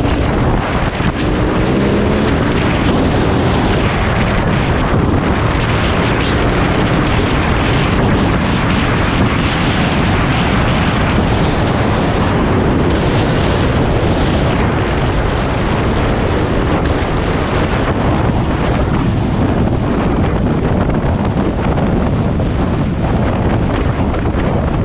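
Loud, steady wind noise buffeting the microphone, as from riding a motorcycle at speed. An engine note shows through faintly for a moment a second or two in.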